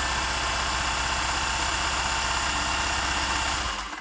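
Singer 401A sewing machine running at speed, sewing a decorative stitch pattern with rapid, even needle strokes. It slows and stops near the end.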